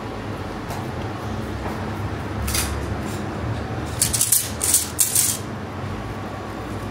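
A hand splashing and swishing in a metal bowl of water, wetting it to work minced kebab meat onto a skewer: one short splash about two and a half seconds in, then a run of quick, louder splashes about four seconds in. A steady low hum sits underneath.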